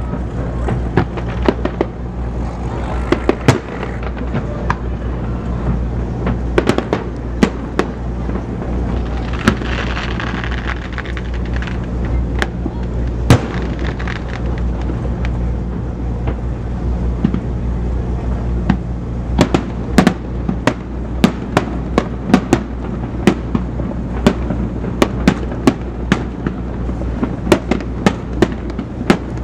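Fireworks display: a string of sharp bangs and crackles over a steady low rumble, the bangs coming much thicker in the last third.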